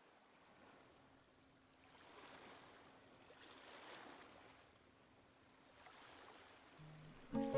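Faint soft rushing noise that swells and fades every couple of seconds, like a bed of surf, with a faint steady low tone under it. Lo-fi guitar music comes in near the end.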